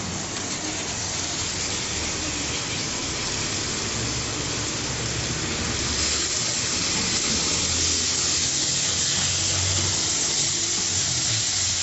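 Chopped tomatoes sizzling in hot oil and onion-spice masala in an aluminium karahi: a steady frying hiss that grows a little louder about halfway through.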